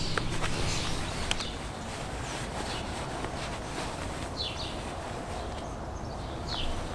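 Handling noise over a steady hiss. A few sharp clicks in the first second and a half come from an inline skate's ratchet buckle being fastened. Rustling follows, with two short high chirps about four and a half and six and a half seconds in.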